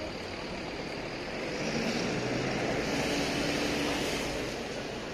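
A motor vehicle passing over steady city street noise, swelling from about two seconds in and fading away near the end.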